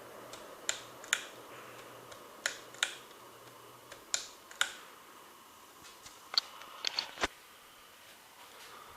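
A 36-inch plastic Lasko ceiling fan coasting down after being switched off. A faint motor hum stops about halfway through, and there is a series of sharp clicks, mostly in pairs, with four close together near the end.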